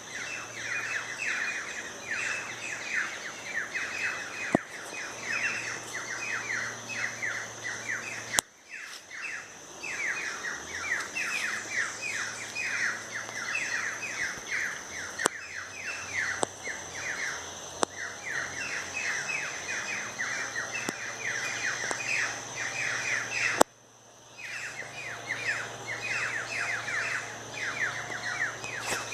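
A dense chorus of birds chirping, rapid short downward-sweeping chirps several times a second without pause, over a faint steady high-pitched hum. Twice, about eight seconds in and near the end, a sharp click cuts the sound off for a moment.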